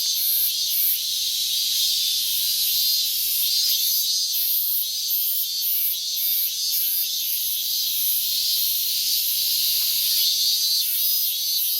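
Robust cicada (minmin-zemi, Hyalessa maculaticollis) singing: a loud, high, pulsing buzz that repeats its "meen-meen" phrases without a break.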